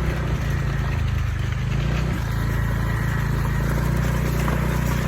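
Motorbike engine running at low, steady revs, its pitch shifting slightly about two seconds in.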